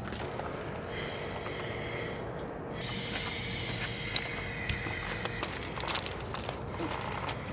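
Aerosol spray-paint can hissing in long sprays, with a short break about two and a half seconds in.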